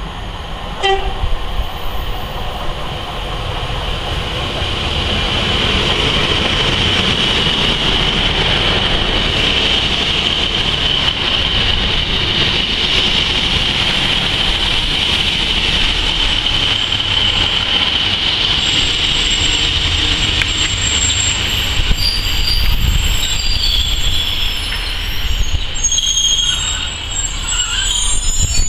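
Class 150 Sprinter diesel multiple unit running along the platform, building up over the first few seconds and carrying a steady high squeal through the middle. Sharp high wheel squeals come near the end as it draws away.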